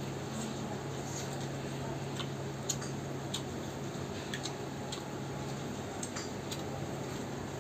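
Eating rice and curry by hand: scattered small wet clicks and smacks from chewing and from fingers working the rice on the plate, irregular at about one or two a second, over a steady low hum.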